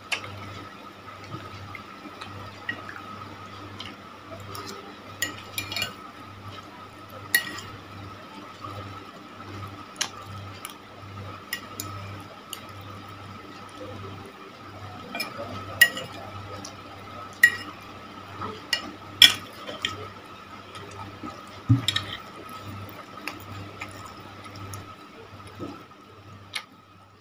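Close, wet chewing of cilor and egg macaroni, with a metal spoon clinking and scraping on a ceramic plate in a dozen or so sharp clicks, the loudest in the second half. A steady hum runs underneath.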